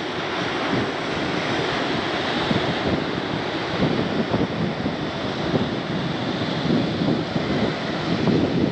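Steady wash of sea surf breaking on the shore, with wind buffeting the microphone.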